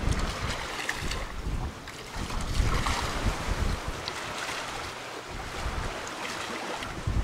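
Wind buffeting the microphone, in gusty low rumbles, over the rush of sea water along the hulls of a sailing catamaran under way.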